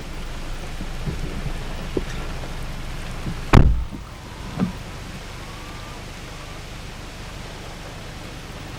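Steady heavy rain, with a vehicle door slamming shut about three and a half seconds in and a smaller knock a second later. After the slam the rain sounds quieter.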